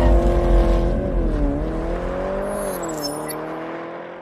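Car engine held at high revs during a tyre-smoking burnout, its note wavering up and down over a deep rumble and fading away.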